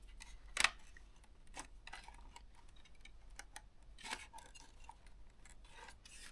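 Plastic pry tool working around the plastic case of a ThinkPad T430 laptop, giving scattered light clicks and scrapes as the case edge is levered and the clips give, with the sharpest click about half a second in.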